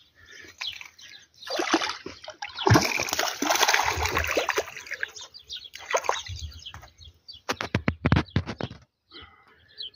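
A hooked small black bass thrashing and splashing at the water's surface in irregular bursts as it is reeled in. A quick run of sharp clicks and taps follows about three-quarters of the way through.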